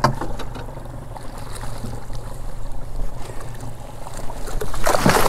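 Outboard motor idling steadily, under a wash of wind and sea noise. A louder burst of noise comes near the end.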